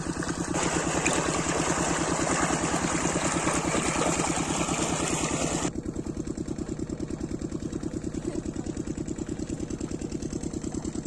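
A 12 hp diesel engine driving an irrigation water pump runs steadily with an even pulsing beat. Water gushes loudly from the pump outflow across the ground until almost six seconds in, when the rushing drops away and leaves the engine alone.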